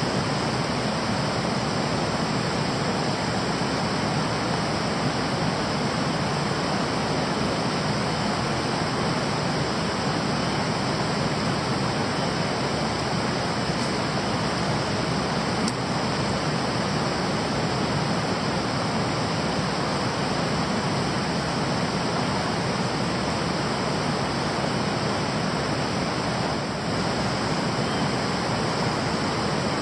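Steady rush of stream water flowing, an even unbroken wash.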